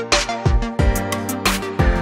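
Background music with a steady drum beat: a kick drum about every third of a second under hi-hats and sustained bass and synth notes.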